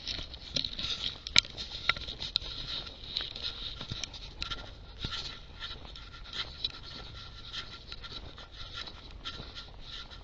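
Irregular patter of footsteps on a wet, muddy trail, with many small clicks and crackles and a sharper click about a second and a half in.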